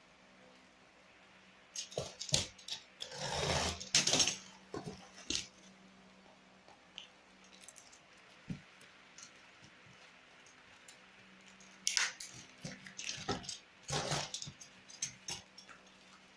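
Handling noise of drills and packing material being packed: quick clicks, clatters and rustling in two bouts of a few seconds each, the first about two seconds in, the second near the end.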